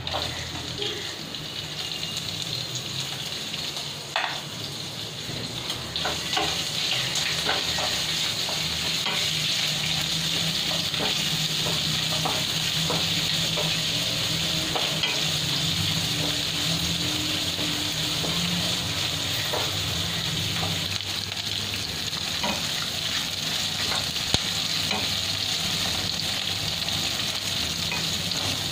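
Green chillies and whole spices sizzling as they fry in hot oil and ghee in a kadai, a steady hiss that grows a little louder about six seconds in. The spatula stirring them clicks and scrapes against the pan now and then.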